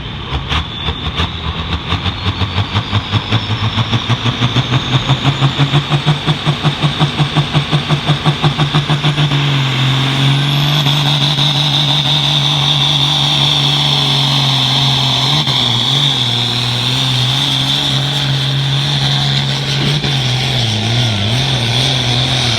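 International Harvester 1066 pulling tractor with a 466 cubic inch diesel, at full throttle on a pull. For the first nine seconds or so the note throbs rapidly while a high whine rises. It then settles into a steady high-revving run with a loud whine over it.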